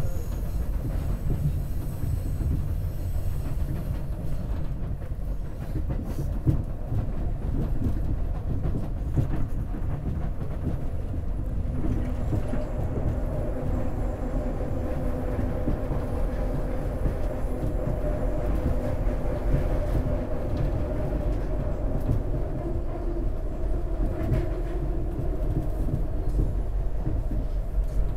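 SEPTA Market-Frankford Line train running at speed, heard from inside the passenger car: a steady low rumble of wheels and car body. A humming tone joins about twelve seconds in.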